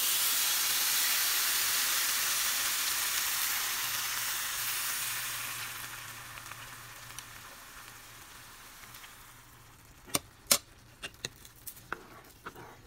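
Hot chicken broth poured onto jasmine rice frying in oil with garlic, sizzling loudly at once and gradually dying away over several seconds as it is stirred. Near the end, a few sharp clicks of the spoon against the pan.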